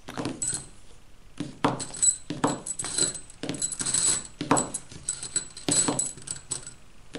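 Steel nails clinking as they are picked one at a time from a pile and laid side by side on a table, a sharp metallic click about twice a second, some with a short ring.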